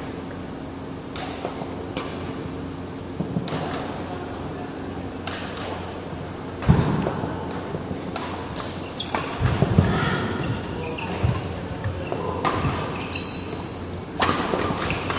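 Badminton rally in a large echoing hall: sharp racket strikes on the shuttlecock every couple of seconds, with heavy footfalls and brief shoe squeaks on the court mat.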